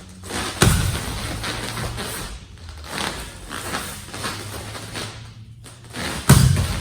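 Two heavy thuds from karate practitioners drilling a punch combination, one about half a second in and a louder one near the end, with movement noise between them.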